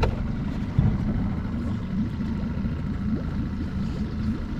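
Boat motor running steadily at low speed, with a single knock a little under a second in.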